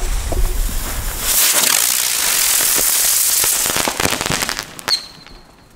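Klasek Whistling Airplane flying firework: the lit fuse fizzes, then about a second and a half in a loud rushing hiss as it takes off, with hardly any whistle. Near four seconds its effect goes off with a crackle of sparks, ending in a sharp pop and a brief thin high tone.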